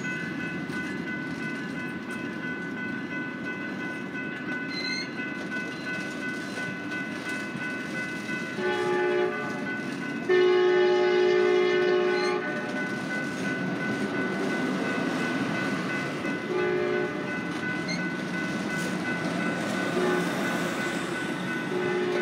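Amtrak California bilevel passenger cars rolling past over the rails, with a train horn sounding several times. The longest and loudest blast is about 10 seconds in, with shorter blasts before and after it. A steady high ringing runs underneath.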